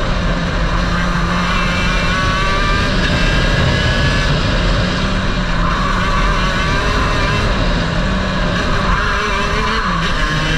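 Racing kart engine running hard, heard from on board the kart, its pitch rising and falling as it accelerates and slows through the corners, over steady wind and road noise.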